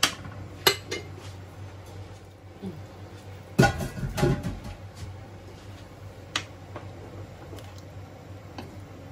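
Clinks and knocks of kitchen utensils against an aluminium pressure cooker as thick coconut milk is poured into the stew and it is stirred with a plastic ladle. The loudest clatter comes a few seconds in, with a few lighter taps after it.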